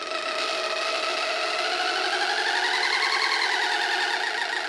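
Breadboard Weird Sound Generator analog synth, circuit-bent with extra ICs, droning a buzzy, rapidly warbling electronic tone. Its pitch swells upward two to three seconds in and then eases back a little.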